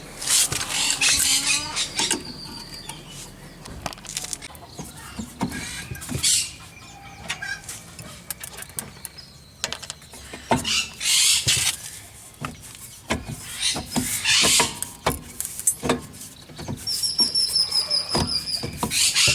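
Metal clicks, knocks and scraping bursts of a bearing puller being worked on a damaged rear wheel bearing of a VW Pointer, the hub-and-tool noise coming in irregular spells. Near the end a bird sings a quick run of high chirps.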